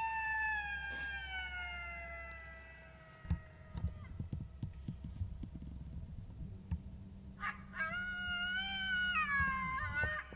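Electronic predator caller playing recorded coyote long howls: one long howl slowly falls in pitch and ends about four seconds in, and a second begins about eight seconds in and breaks off near the end. A scatter of knocks and rustles sounds between the two howls.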